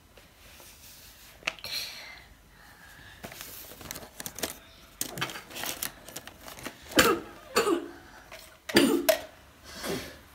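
Plastic clothespins clicking and rattling against each other as a hand rummages through them in a cardboard box. A few sharp, louder sounds come in the second half.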